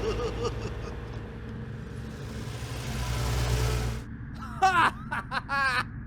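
Cartoon vehicle engine rumbling steadily and building slightly, cutting off about four seconds in. It is followed by a few short, squeaky, pitch-bending chirps.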